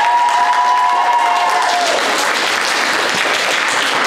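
Audience applauding, a dense steady clatter of many hands, with a long held high whoop from someone in the crowd that ends about two seconds in.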